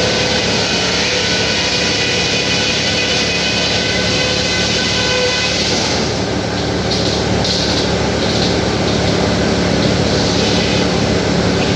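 Sawmill machinery running steadily: a heavy engine's drone with a loud whir over it. About halfway through, the high whine gives way to short hissing bursts.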